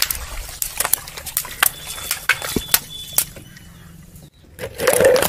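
Car tyre rolling over water-filled long modelling balloons, bursting them in an irregular run of sharp pops and wet splats. There is a brief gap about four seconds in, then a louder, denser burst of pops.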